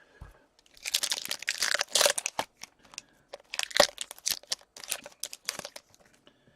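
Crinkling of plastic or foil card packaging being handled, in two bouts of crackling with a short pause between.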